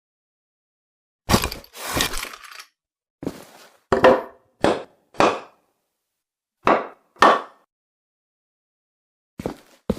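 Sound effect of a hammer striking boards to barricade them: sharp wooden knocks, mostly in pairs about half a second apart, with a brief clattering rattle after the second stroke about two seconds in and gaps of silence between the pairs.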